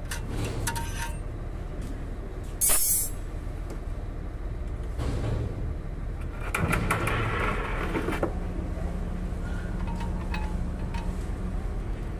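Workshop background of a steady low engine hum, with a sharp metallic clank about three seconds in and a louder rushing noise lasting over a second around the middle.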